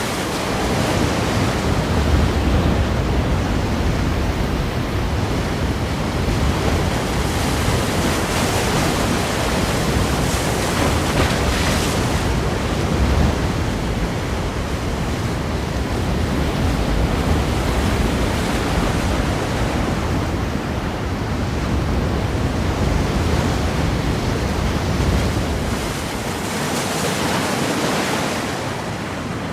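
Ocean surf: waves breaking against rocks, a continuous rushing that swells and eases every few seconds.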